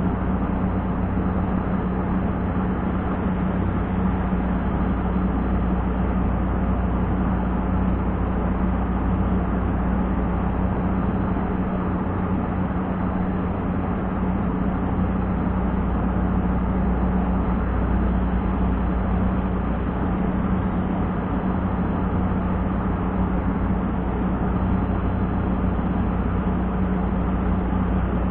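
Wind rumbling and buffeting on an action camera's microphone, with a steady low hum underneath.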